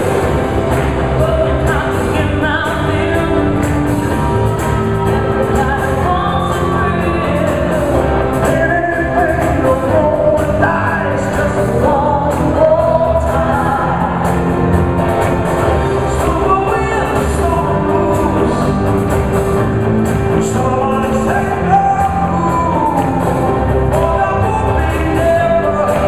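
Live pop music: a group of singers at microphones singing over a full band and orchestra in a large concert hall.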